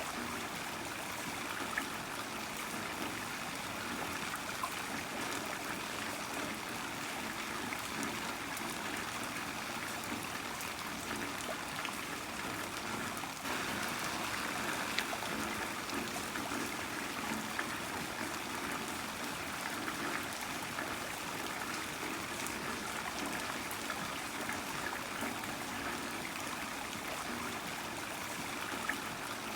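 Heavy rain falling steadily, an even rushing hiss with scattered sharp drop ticks; it grows slightly louder about halfway through.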